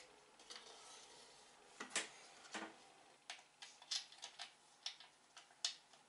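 Faint clicks and knocks of the plastic Xpelair DX100T extractor fan housing being handled and pushed into its duct against the wall. A couple of soft knocks come about two seconds in, then a run of short, sharp clicks follows near the end.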